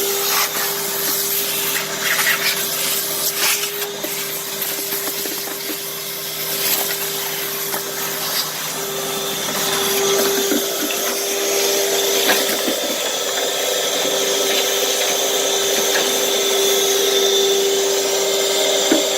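Heavy-duty wet/dry vacuum running steadily with a constant hum, sucking up water and dust, with a few light knocks now and then.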